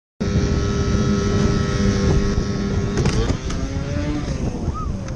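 An engine running steadily against a heavy rush of noise, starting abruptly. About three seconds in a few sharp clicks sound and the engine's pitch begins to shift.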